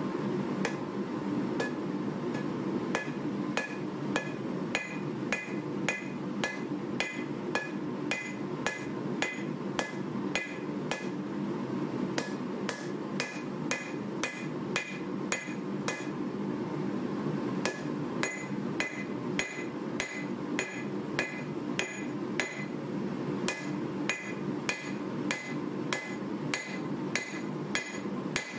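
Hand hammer striking a hot 1095 steel knife blank on an anvil in a fast, steady rhythm of blows, each with a short metallic ring. The hammering is broken by a few brief pauses.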